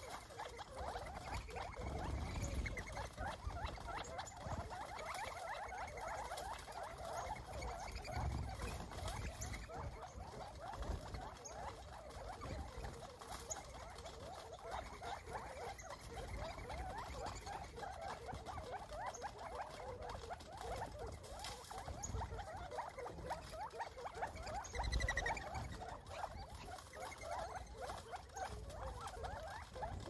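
A flock of birds at a feeding spot chattering softly, with many short overlapping calls going on continuously. A single louder, higher call stands out about 25 seconds in.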